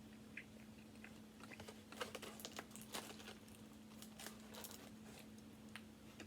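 Faint chewing and small wet mouth clicks from someone eating, over a steady low hum.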